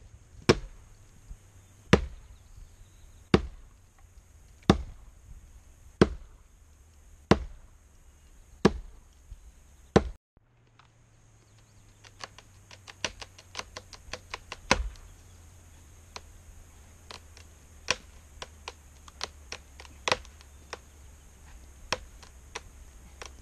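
Axe chopping into a tree trunk: eight sharp strikes a little over a second apart. After a short break, a scatter of lighter, irregular cracks and clicks, with a few louder ones, as the notched trunk is pushed on by hand.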